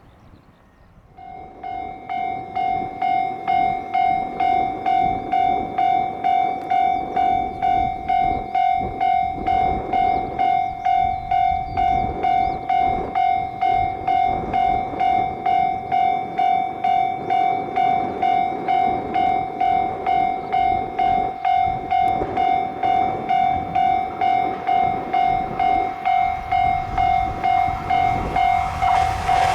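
Japanese level-crossing alarm starting about a second in and ringing its repeated electronic ding at about two strokes a second, warning of an approaching train. Train noise begins to rise at the very end.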